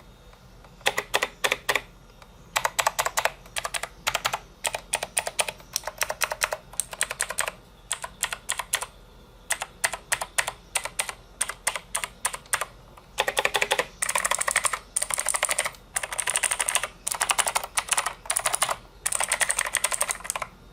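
Typing on a Razer BlackWidow mechanical keyboard with Razer Green clicky switches: rapid bursts of sharp clicking keystrokes with short pauses between them.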